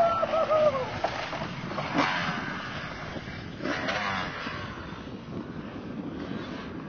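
Dirt bike engine revving in short blips, its pitch falling away within the first second. After that the engine is heard from a distance under wind on the microphone, swelling briefly twice.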